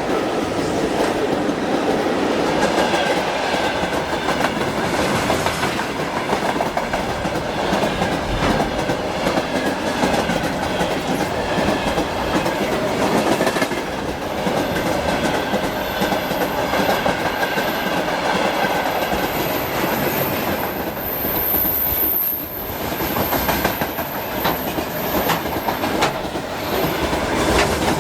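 An electric train running past at speed, its wheels clattering steadily over the rail joints.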